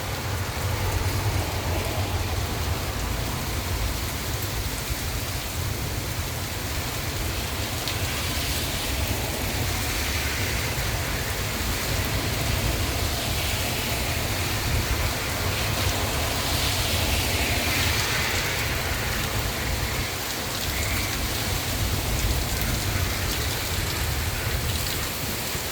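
Steady heavy rain falling on surfaces during a thunderstorm, an even hiss with a constant low rumble beneath it.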